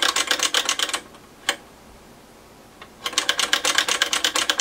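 Rotary decade switch on a Keithley 260 nanovolt source being spun quickly back and forth, a rapid run of detent clicks for about a second. A single click follows, then another rapid run about three seconds in. The switch is being exercised to wipe its dirty contacts clean.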